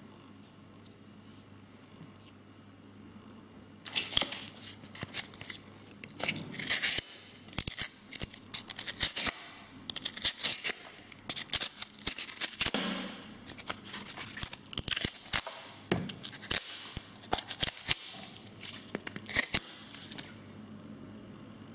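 Hands working a Leatherman Crater C33 folding knife: irregular sharp metallic clicks mixed with scraping and rustling, starting about four seconds in and stopping near the end.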